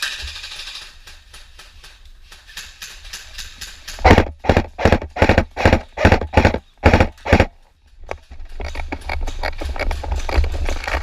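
A player's own footsteps jogging over the ground, about three heavy steps a second, starting about four seconds in and stopping after a few seconds. Then quicker, lighter steps and gear rustling, with wind rumble on the microphone.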